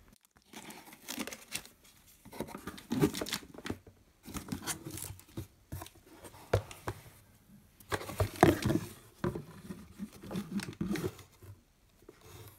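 Hands rummaging in a cardboard box and lifting out a plastic bottle: irregular rustling, scraping and light knocks of cardboard and plastic in several clusters with short pauses between them.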